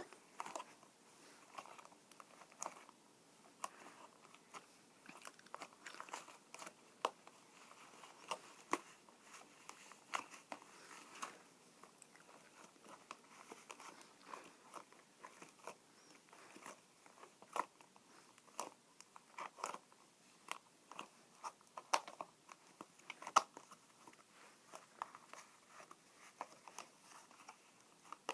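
Butter slime being poked, making small sticky clicks and pops at irregular intervals, several a second.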